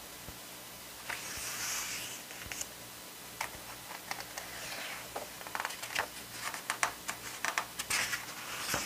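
Glossy photobook pages being handled and turned: a soft paper slide, then a run of crackles and ticks as a stiff page is lifted and bent over, with a sharper snap near the end.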